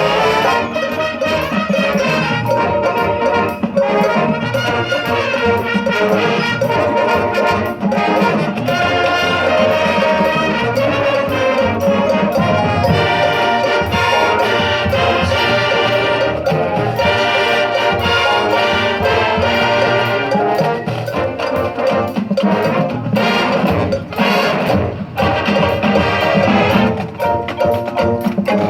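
High school band playing loud, sustained brass-led music, with trumpets and trombones carrying the chords over percussion hits.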